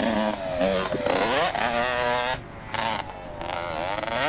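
Two-stroke motocross bike engine revving up and dropping back several times as the rider works the throttle through the track. The revs climb, fall away sharply about halfway through, then build again more quietly.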